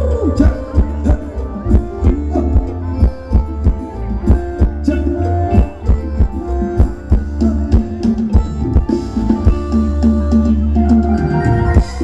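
Thai ramwong dance music played by a band: drums keep a steady beat under a heavy bass line and a sustained melody.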